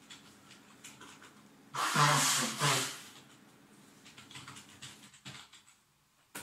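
A person with a heavy head cold sneezes once, loudly, about two seconds in: a short voiced catch of breath, then a hissing burst. Faint keyboard typing clicks go on before and after.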